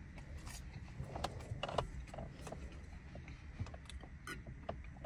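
Small mouth sounds, clicks and rustles of a person eating chicken nuggets fast, with a swig from a bottle near the end, over a low steady rumble.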